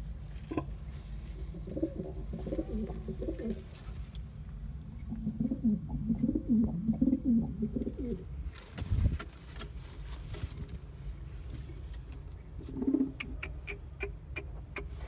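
Domestic pigeons cooing in three low, warbling bouts, the longest in the middle. A thump about nine seconds in, and a few light clicks near the end.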